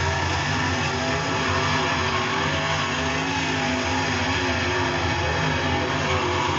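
Dirt Super Late Model race cars' V8 engines running hard around the track, the pitch of several engines rising and falling as they drive through the turns.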